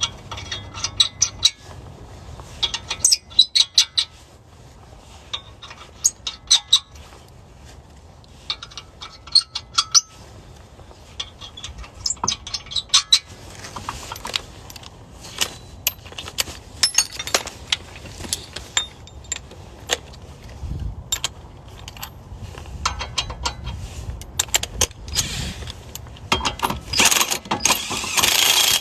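Scattered metallic clicks and clinks of lug nuts and wheel hardware as a spare tire is fitted onto the hub. Near the end a dense, loud rattle starts, typical of an impact wrench driving the lug nuts on.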